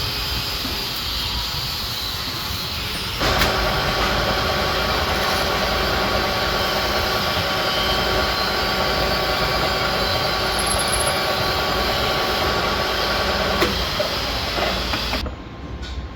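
A machine running steadily with a hiss, louder from about three seconds in and dropping off abruptly near the end.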